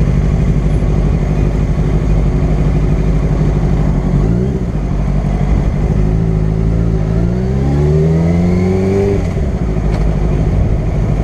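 Yamaha sport bike engine over steady wind and road noise. There is a short rise in engine note about four seconds in, then the pitch climbs steadily for about three seconds as the bike accelerates and cuts off sharply near the end.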